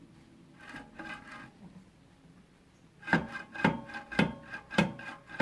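Rhythmic metallic knocking, about two strikes a second, each ringing briefly, starting about three seconds in after a softer scraping sound with a faint ring.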